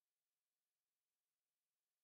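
Silence: a soundless screen recording, with only a faint digital noise floor.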